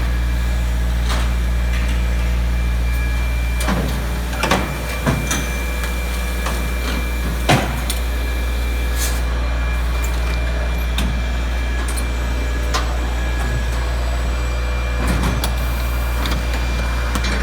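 Steady low hum of industrial machinery, with a few sharp knocks and clicks scattered through it, the loudest about seven and a half seconds in.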